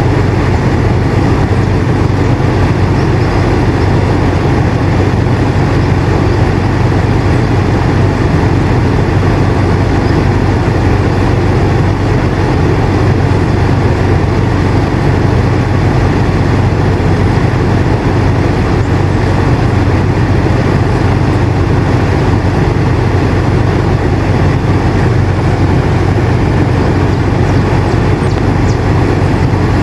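Air conditioner running steadily: a low, even hum under a constant rush of air, without change.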